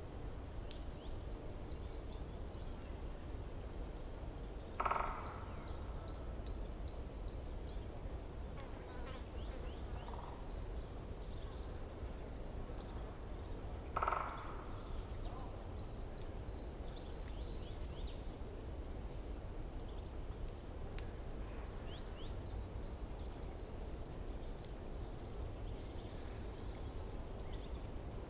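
A songbird repeating a song of about eight to ten quick, evenly spaced high notes, each run about two seconds long and coming back every five seconds or so, over the steady low rush of a forest stream. A louder, lower call cuts in twice.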